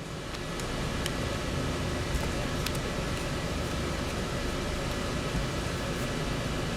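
Steady rushing background noise, swelling slightly in the first second and then holding, with a few faint light clicks.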